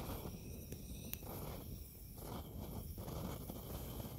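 Handheld gas torch held to a pile of dry twigs, its flame giving a soft, uneven hiss as the kindling starts to catch, with a sharp click about a second in.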